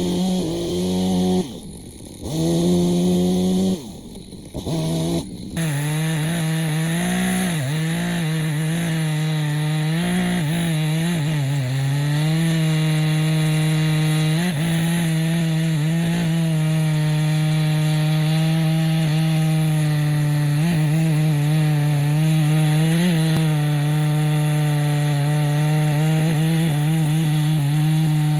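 Two-stroke chainsaw cutting live oak, at high revs. Twice in the first few seconds the throttle drops away briefly, then the saw runs steadily at full throttle with its pitch dipping briefly now and then.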